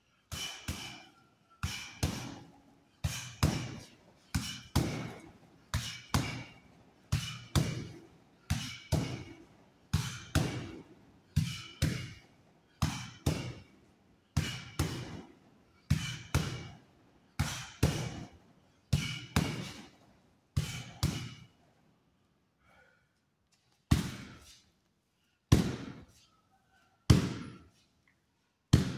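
Bare knuckles punching hanging burlap sand-bag makiwara in quick pairs of thuds, a bit more than one pair a second, for about twenty seconds, as conditioning of the knuckles. After a short pause come four louder single blows about a second and a half apart, shin kicks into the sand bags.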